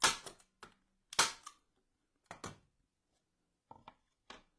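Manual staple gun driving quarter-inch staples into an MDF sign to hold pipe cleaners: two sharp snaps, one right at the start and one about a second later, then a few fainter clicks and taps.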